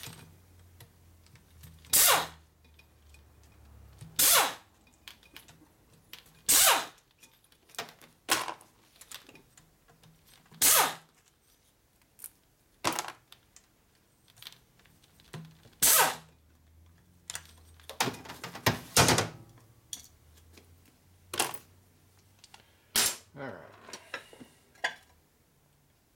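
Hand-held air tool on a hex bit, run in about ten short bursts a couple of seconds apart, spinning out the quarter-inch Allen bolts that hold down a V-twin's rocker box. Small clicks come between the bursts.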